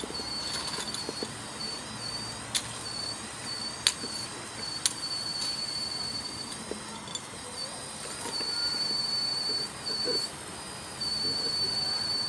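High-pitched whine of an RC model excavator's drive, a 1:16 Komatsu PW180, starting and stopping and shifting slightly in pitch as the machine slews and swings its boom. Three sharp clicks in the first five seconds, the middle one the loudest.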